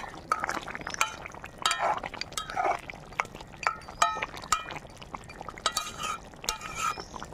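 A spatula stirring thick chicken curry in a metal kadai to mix in garam masala paste. It gives repeated sharp, ringing clinks against the side of the pan, irregularly spaced, with wet squelching of the gravy between them.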